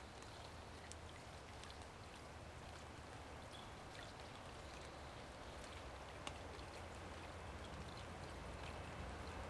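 Light rain falling: a faint, even hiss with scattered single drips ticking. Near the end a low rumble grows slightly as an electric limited express train approaches in the distance.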